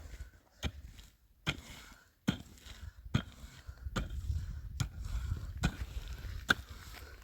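Sharp knocks repeated at a steady pace, about one every 0.8 seconds, like something being struck over and over, over a low rumble.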